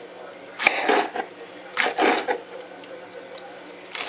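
Hands gathering soft, overripe peach pieces off the countertop, in two short bursts of handling noise about a second apart.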